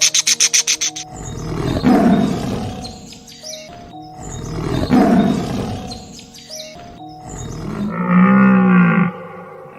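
A quick run of short repeated calls ends about a second in, followed by two long, rough, roar-like animal calls, each swelling and fading over about three seconds. Near the end a cow starts mooing, a low drawn-out call. Background music plays underneath.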